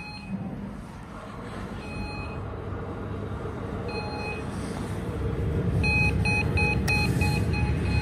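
Short electronic beeps, one about every two seconds at first, then a quick run of about four a second from about six seconds in, over a low rumble that builds up and becomes the loudest sound.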